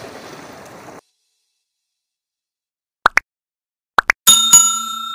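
Subscribe-button animation sound effects: two pairs of quick clicks about three and four seconds in, then a bell-like notification ding that rings on. Before that, a faint rush of water and music fades out about a second in.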